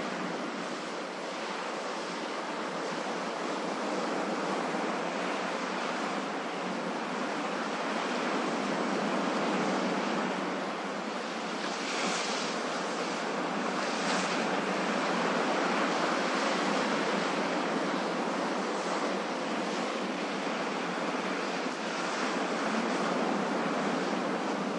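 Ocean surf: waves washing and breaking in a continuous rush, with two brighter hissing surges about halfway through.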